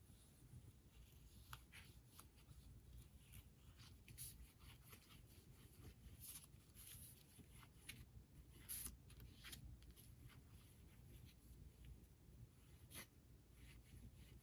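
Near silence, with faint scattered rustles and small taps of paper and bookbinding materials being handled.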